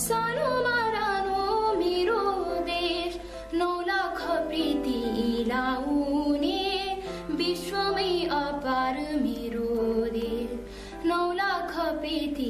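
Music: a girl's voice singing a Nepali song, the melody wavering and ornamented, over long held instrumental tones.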